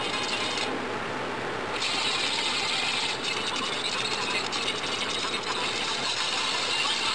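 Pencil scratching on paper, sped up into a fast, continuous rasping rattle; the high hiss thins out briefly about a second in.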